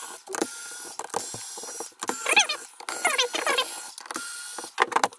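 A cordless electric screwdriver whining in several short stop-start runs as it backs screws out of a plastic battery case, with high squeaks from the screws turning in the plastic in the middle.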